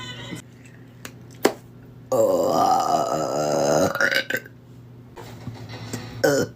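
A person's long, loud burp lasting about two seconds, starting about two seconds in. A sharp click comes shortly before it, and a brief vocal sound follows near the end.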